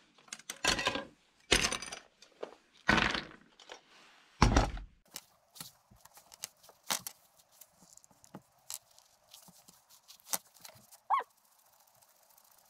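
Handling noise from glue tubes, wooden sticks and a plastic tub on a workbench: four loud knocks and clatters in the first five seconds, then scattered small clicks and taps as a glue tube is opened and glue is spread with a wooden stick, with a short squeak near the end.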